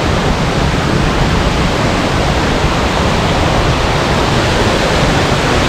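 Large waterfall in full flow, a steady, loud rush of falling water, swollen with recent rain.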